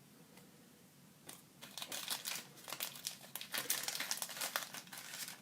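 Plastic crinkling and crackling from trading cards and their plastic packaging being handled. It starts about a second in as a quick run of sharp crackles and stops just before the end.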